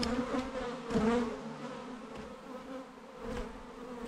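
Honey bees swarming around an opened, disturbed hive: a dense steady buzz, with single bees passing close by, their pitch rising and falling as they fly past.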